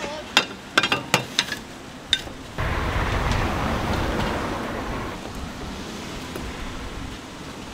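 Small metal egg-bread molds clinking and knocking as they are set down on a steel counter, several sharp knocks in the first two seconds. About two and a half seconds in, a steady outdoor rushing noise sets in suddenly and carries on.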